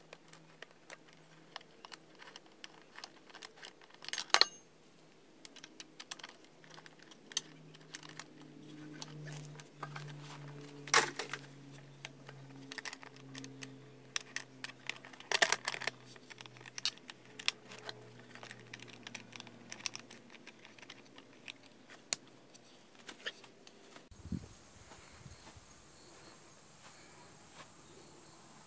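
Small metal clicks and clinks of a hex key and seat-post clamp hardware as a bicycle saddle is fitted and tightened, with three louder sharp clanks.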